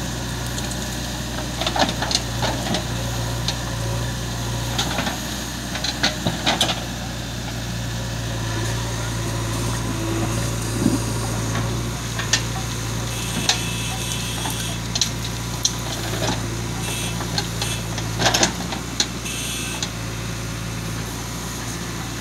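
Diesel engines of a JCB 3DX backhoe loader and a Mahindra tractor running at a steady idle, with a few sharp knocks and clatters scattered through as soil and stones drop into the tractor's trolley.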